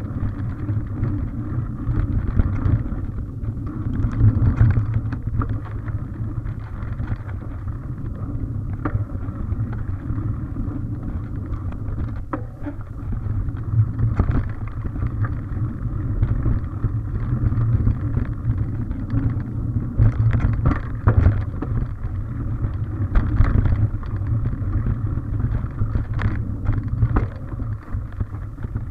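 Mountain bike ridden over a dirt trail: a steady low rumble of wind and motion on the microphone, with tyre noise and frequent short rattles and knocks as the bike rolls over roots and bumps.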